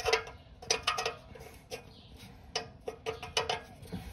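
Narrowband oxygen sensor being unscrewed by hand from a steel exhaust, its threads giving light, irregular metallic clicks with a short ring, a few a second. The sensor has already been broken loose and now turns freely by hand.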